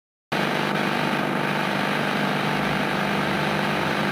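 A steady, loud hum with hiss that cuts in suddenly just after the start and holds unchanged.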